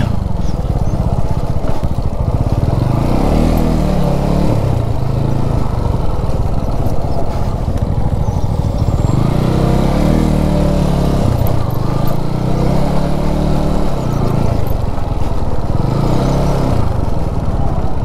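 TVS Apache RTR 200 4V's single-cylinder engine running as the bike is ridden over a rough dirt track. The revs rise and fall several times as the throttle is opened and eased.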